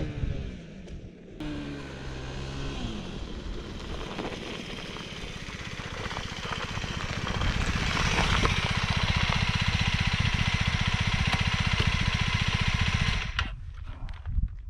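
FB Mondial Flat Track 125's single-cylinder, four-stroke engine approaching at low revs and growing louder, then running steadily with an even pulse close by. It cuts off abruptly near the end as the engine is switched off, leaving a few small clicks.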